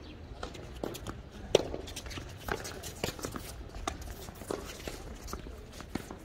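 Tennis doubles rally on a hard court: tennis balls popping off rackets and bouncing, a sharp knock every half second or so, the loudest about a second and a half in, with players' footsteps on the court.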